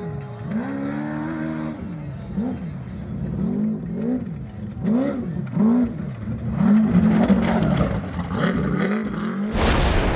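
Off-road desert race car engine revving up and down again and again as the throttle is worked over rough ground, about one to two rises a second. Near the end a sudden loud whooshing burst cuts in.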